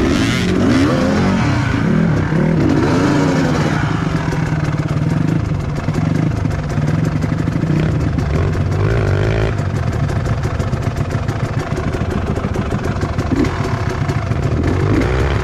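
Dirt-bike engine revving up and down over and over, its pitch rising and falling with the throttle as the bike climbs.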